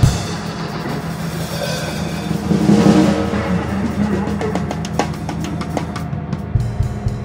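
Live improvised noise music on amplified electric bass and guitars: a sustained low drone that swells about three seconds in, with sharp clicks and fine ticking near the end.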